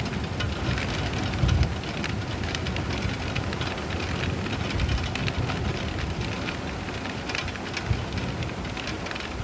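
Steady rain falling, with many close drops pattering. There are brief low rumbles of thunder about a second and a half in and again near the end.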